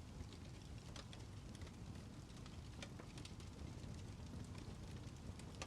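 Steady rain falling, with scattered individual drops tapping close by at irregular moments.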